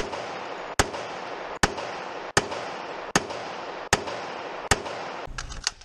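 Gunshots fired one at a time at a steady pace, about one every 0.8 seconds, seven in a row, followed by three quick shots near the end.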